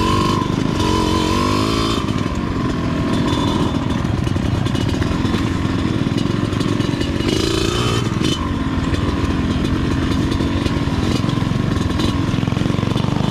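Trail motorcycle engine running while riding, its pitch rising and falling as the throttle is opened and closed, about a second in and again near eight seconds.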